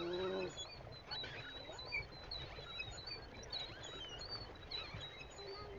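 Small birds chirping repeatedly in short, high calls, over a steady low rumble.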